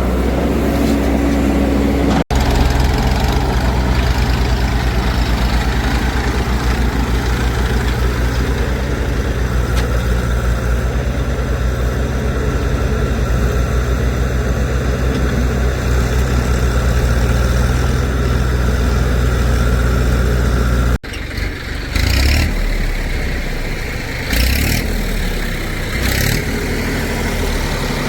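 Heavy diesel engine of a backhoe loader or tractor running steadily under load. Near the end the sound changes abruptly to uneven running with a few short surges of revving.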